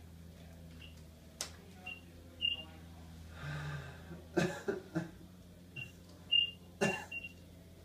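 Short, high electronic beeps from hospital bedside equipment sound several times, in a cluster near the end, over a low steady hum. Around the middle, a patient makes a few breathy vocal sounds, like gasps or a cough.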